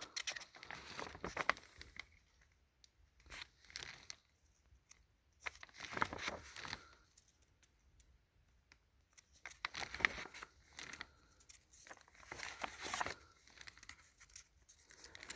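Pages of an old book or photo album being handled and turned, with the dry paper rustling and crackling in irregular bursts every second or two.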